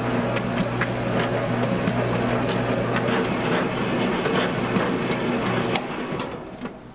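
Commercial dough mixer's motor running with a steady hum as its dough hook kneads pizza dough in a steel bowl, with scattered knocks; the noise drops away about six seconds in.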